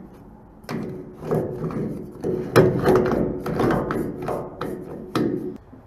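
A series of short scraping, rubbing strokes, about two a second, from hands working the threaded filler-vent cap on a steel fuel transfer tank.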